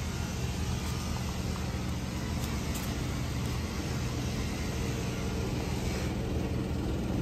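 A motor running steadily at a constant low pitch, with an even hiss over it.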